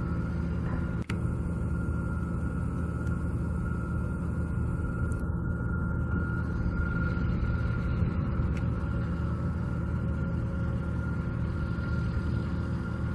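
Steady low engine rumble with a thin steady whine over it, unchanging throughout apart from a brief dropout about a second in.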